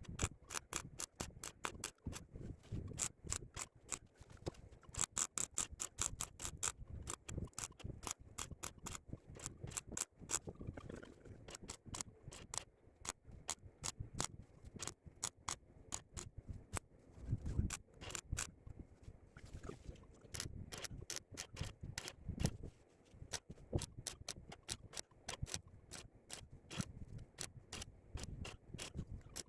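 Welder spot welding patch panels onto a van's rusted sill: a long irregular run of short, sharp crackling zaps, several a second.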